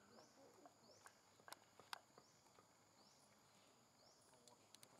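Near silence outdoors: faint scattered ticks and clicks, with a faint high chirp repeating about once a second over a steady thin high hiss.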